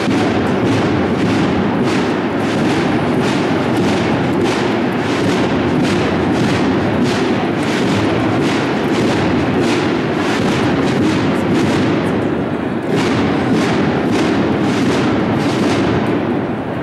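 Drum section of a cornet-and-drum marching band playing a steady march beat on its own: rattling snare drums with a strong regular stroke about three times a second, and no cornets yet.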